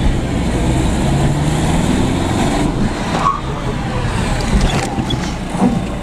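Citroen C4 heard from inside the cabin while driving: a steady engine and road rumble, the engine note rising as it speeds up about a second in, then levelling off.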